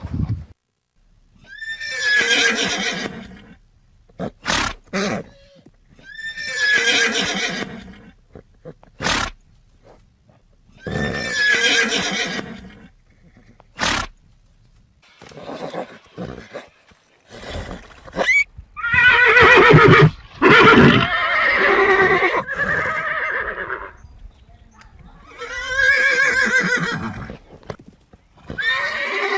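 A horse neighing again and again: a series of whinnies, each a second or two long, with a longer run of calls about two-thirds through. A few sharp knocks come between the calls.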